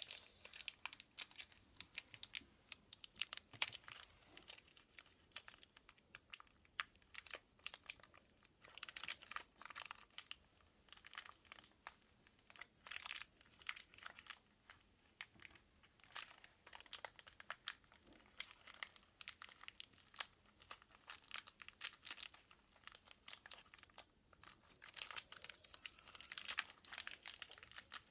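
Thin plastic wrapper from a toy blind basket being crinkled and pulled open by hand, with irregular crackling and rustling in quick clusters.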